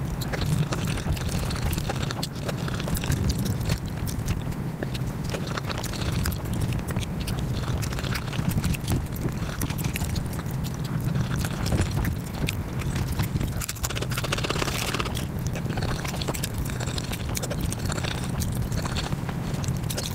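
Close-miked mukbang eating sounds played at five times speed: chewing, biting and wooden-spoon scrapes run together into a fast, dense clatter of clicks.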